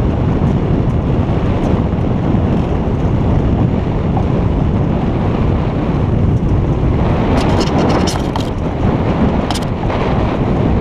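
Wind buffeting a GoPro's microphone hoisted to the top of a sailboat's mast: a loud, steady, low rushing rumble. A cluster of sharp clicks comes a little past the middle, with one more shortly after.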